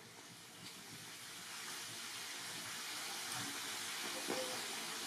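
A steady rushing hiss that swells over the first two seconds and then holds, with a brief faint knock about four seconds in.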